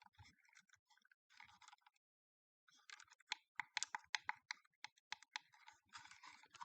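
Faint, rapid clicks and scratches from hands handling the opened battery pack's small plastic and metal parts, thickest through the second half.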